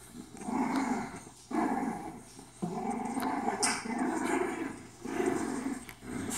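English bulldog growling in play: a string of about five growls, each a second or so long, with short gaps between them.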